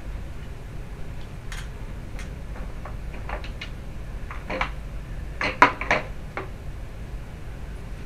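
Hand tools and small hard parts clinking and clattering as they are picked up and set down on a step ladder's plastic tray: scattered clicks, then a quick run of sharper clacks a little past halfway, the loudest of them there.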